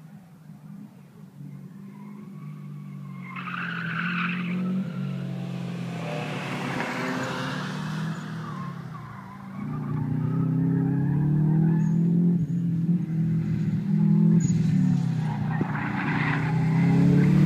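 Two rally cars, a Subaru Impreza leading, driven hard round a tarmac track: engines revving up and down through the bends, with tyre squeal around four seconds in and again near the end. The engines grow louder as the cars come closer.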